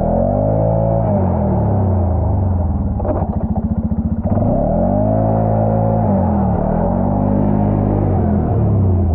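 Four-wheeler engine under throttle in mud, its revs swelling and falling several times, dropping to a low, uneven chug about three seconds in before picking up again.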